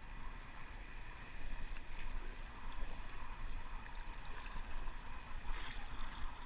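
Choppy sea water sloshing and splashing around a sea kayak, with a louder splash about five and a half seconds in, over a steady low rumble of wind on the microphone.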